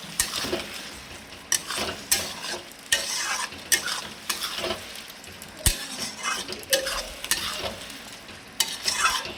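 Mixed vegetable sabzi being stirred as it fries in a pan: a steady sizzle under irregular scrapes and clinks of the stirring spoon.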